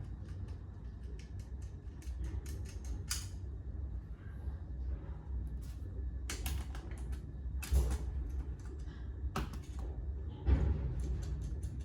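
A run of light, irregular clicks and taps, with several louder knocks scattered through it, over a low steady hum.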